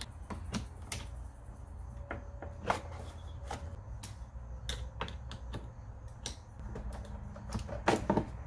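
Small wrench loosening car battery terminal clamps: scattered light metallic clicks and taps, with a quicker cluster near the end.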